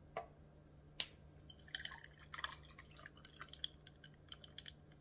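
Carrot juice poured from a clear jug into a glass of ice: faint liquid sounds with a scatter of small clicks as the ice shifts, and one sharper clink about a second in.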